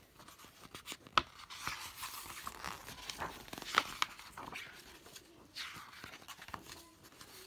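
Paper pages of a picture book being turned and handled: rustling with a few sharp crisp clicks as the pages flip and are pressed flat.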